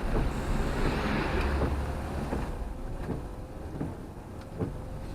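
Road noise heard inside a moving camper van on a wet road: a strong hiss for the first couple of seconds that then eases off, with light regular ticks under it.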